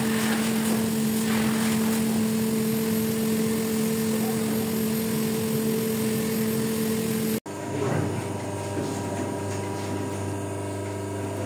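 Steady mechanical drone of running workshop machinery, a low hum with one higher overtone. About seven seconds in it breaks off abruptly and a different, lower steady hum takes over.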